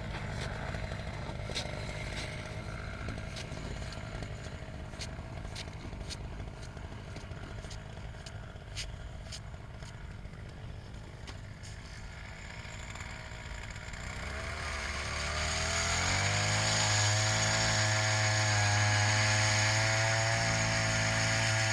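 Small gasoline engine running at low speed with scattered clicks, then revving up about two-thirds of the way through and holding a steady, louder high speed.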